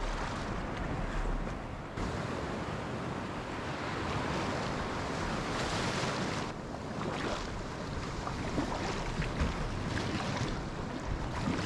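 Breaking surf and white water splashing against a plastic sit-on-top kayak's hull as it is paddled out through the shore break.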